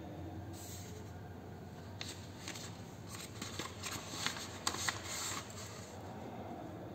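A ruler being set on a sheet of paper and a marker drawn along it to rule a line: a run of small clicks and scratchy scrapes lasting about three seconds, starting about two seconds in.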